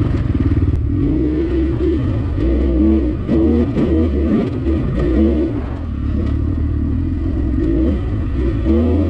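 Off-road motorcycle engine running under riding, its pitch rising and falling with the throttle, with scattered clicks and rattles.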